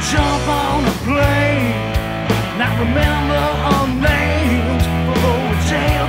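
Southern rock band recording playing: electric guitars and bass over a drum kit keeping a steady beat, with a lead line of wavering, bending notes.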